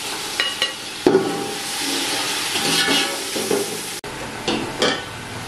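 Hot oil with fried onions and masala sizzling as the thin chicken marinade juice is poured into the pot; the sizzle jumps up about a second in. It breaks off abruptly near the end, followed by a few light knocks.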